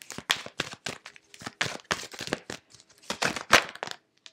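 A deck of tarot cards being shuffled by hand: a quick, irregular run of papery flicks and slaps.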